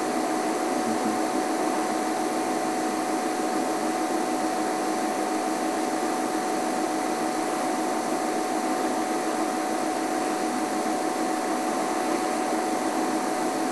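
Steady hiss with a constant, unchanging whine running through it, and no sudden sounds.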